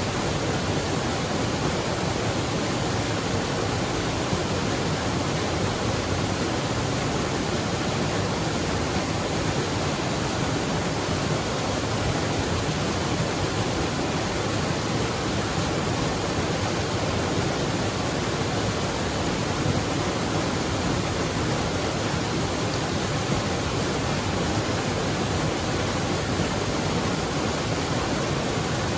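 A waterfall's steady rush of falling water, an even, unbroken hiss.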